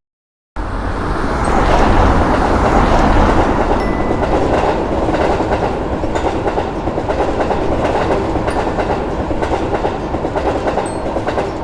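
A train passing at speed: a steady rushing noise with a faint rhythmic clatter of wheels on the track. It starts suddenly about half a second in, is loudest in the first few seconds, and dies away near the end.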